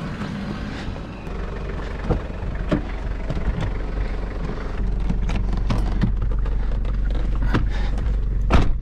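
Toyota Prado's engine idling with a steady low hum while someone climbs into the driver's seat. Scattered knocks and clicks of movement in the cabin sound over it, and one sharp, loud knock comes near the end.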